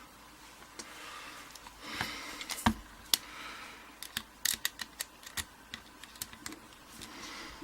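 Scattered small clicks and taps of a padlock and tools being handled and set down on a work surface, with one louder knock a little under three seconds in and a quick run of clicks near the middle.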